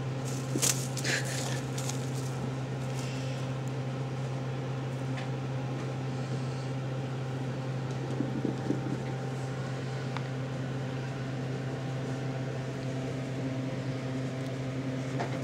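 A steady low hum, with a few light rustles and taps near the start and again about eight seconds in.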